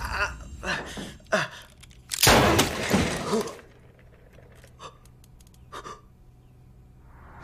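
A man yelling, a sharp crack, then a loud sudden bang about two seconds in that dies away over about a second, followed by quiet with a few faint gasps and clicks.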